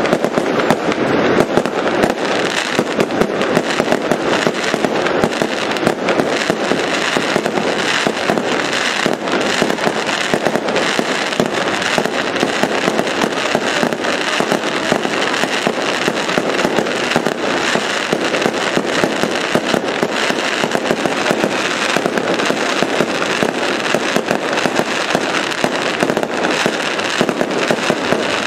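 Aerial fireworks bursting in a dense, continuous barrage of rapid bangs and crackling, with no pause.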